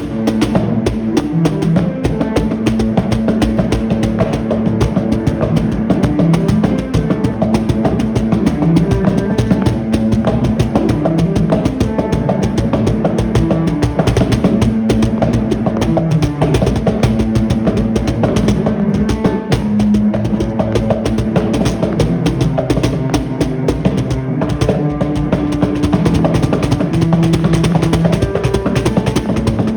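Music led by a drum kit playing a dense, fast beat over held low notes that change every second or so.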